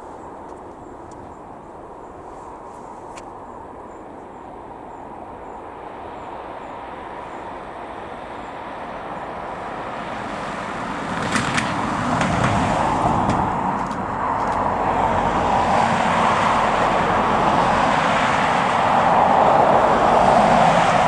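Jet airliner engines, a broad rushing noise that builds steadily louder as the aircraft nears and is loudest near the end, with a few sharp clicks about halfway through.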